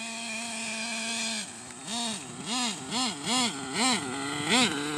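Small nitro engine of an Ofna RC truck running at a steady pitch, then from about two seconds in revving up and down in quick repeated blips, roughly two or three a second.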